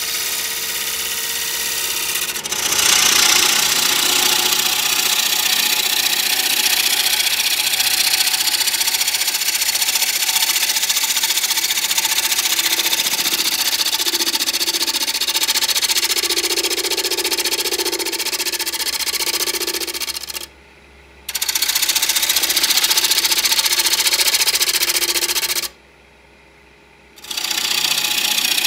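Wood lathe running with a tool working the spinning walnut, a steady hiss that grows louder a couple of seconds in. The sound cuts out abruptly twice, briefly about two-thirds of the way through and for over a second near the end.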